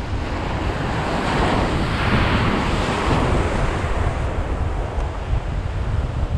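Surf breaking and washing up the shore around the feet, one wash swelling about two seconds in and then easing, with wind buffeting the microphone.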